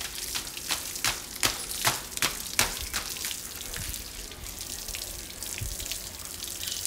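Garden hose spraying a stream of water onto a child and the ground, a steady hiss of spray with a run of sharp splashes about every half second in the first three seconds.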